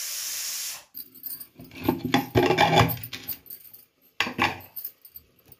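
A pressure cooker hissing steam stops abruptly, then metal rattles and scrapes as its lid is worked open, with a second short clatter near the end.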